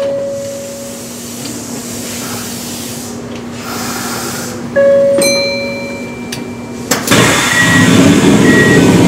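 Kintetsu 1249 series train standing at a platform as its doors close: a steady hum under two short beeps, then a loud rush of noise from about seven seconds in as the doors shut.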